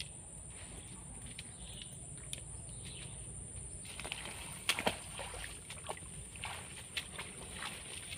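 Swamp-forest outdoor ambience: a steady high-pitched drone under scattered bird chirps. From about halfway in come several sharp clicks and knocks.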